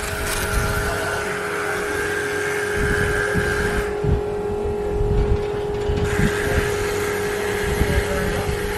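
A motor running steadily with a constant hum and a faint hiss above it; the hiss drops out for about two seconds near the middle.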